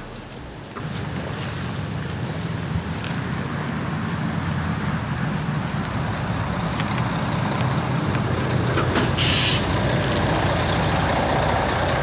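Diesel coach bus engine running with a low rumble, growing louder as the bus approaches and pulls up. A short pneumatic hiss of air sounds about nine seconds in as it stops.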